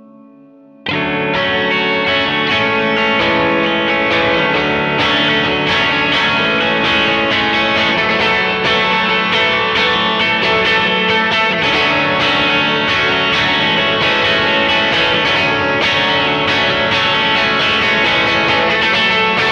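Electric guitar played through a Strymon BigSky reverb pedal on its Chorale setting, a vocal-like reverb that puts vowel sounds into the wash. A faint held tone gives way about a second in to loud, distorted guitar that comes in suddenly and rings on in the reverb, with repeated strokes from about five seconds in.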